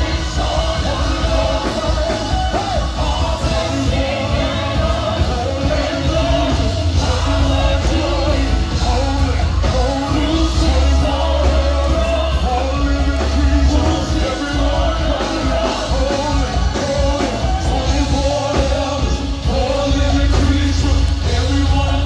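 Live gospel vocal group singing into microphones through a PA, several voices over amplified backing music with a strong, heavy bass.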